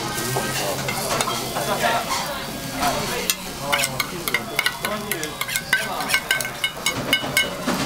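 Okonomiyaki mix of shredded cabbage and batter tipped from a steel bowl onto a hot teppan griddle, sizzling. In the second half there is a quick run of sharp, ringing metal clinks from the bowl and utensil as the bowl is emptied. Restaurant chatter runs faintly underneath.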